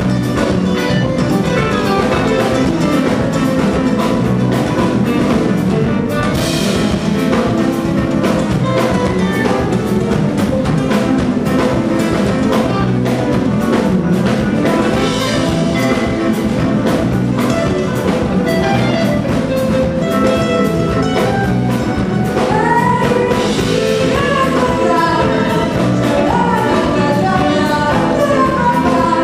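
Live band playing jazzy soul music: electric guitars over a drum kit keeping a steady beat.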